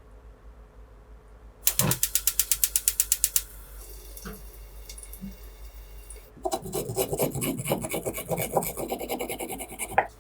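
A rapid run of ratchet-like clicks, about ten a second, lasting under two seconds. After a pause comes a longer, denser clicking and rasping grind that stops just before the end.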